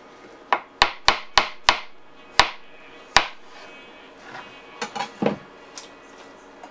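Chef's knife slicing a button mushroom on a plastic cutting board: seven sharp knocks of the blade hitting the board, quick at first and then slower, followed by a few softer knocks and rustles as the slices are pushed aside.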